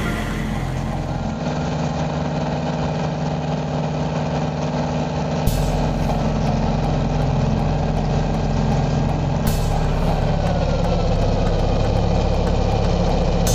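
Heavy engine of a large truck-mounted rotary snow blower running steadily while casting snow. About ten seconds in, its pitch drops a little.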